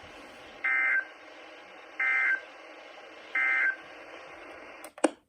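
NOAA Weather Radio SAME digital data: three identical short bursts of warbling data tones, each under half a second and about a second and a half apart, the end-of-message code that closes the warning, over faint radio hiss. A sharp click comes near the end.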